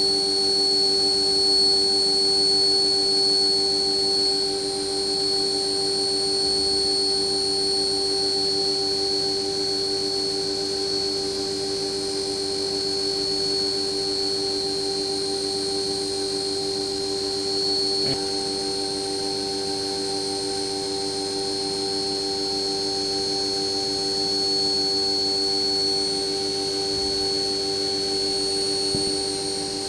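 CNC milling machine spindle running steadily while a 1/8-inch four-flute end mill engraves aluminum, a high-pitched whine over a lower hum. A small click about 18 seconds in.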